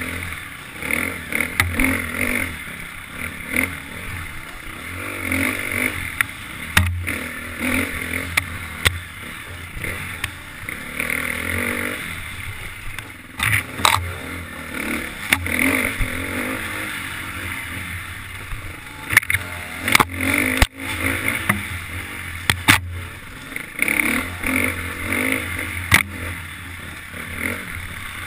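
KTM 350 XC-F dirt bike's single-cylinder four-stroke engine revving up and down under hard riding, the throttle opening and closing in quick bursts. Several sharp knocks and clatter cut through the engine noise.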